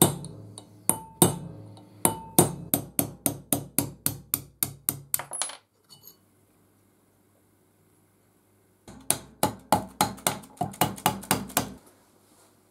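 Steel hammer tapping a pin punch to drive a pin out of a cast-iron vise body: a run of quick, ringing metal-on-metal strikes, about four a second, for roughly five and a half seconds. After a pause of about three seconds comes a second, faster run of strikes.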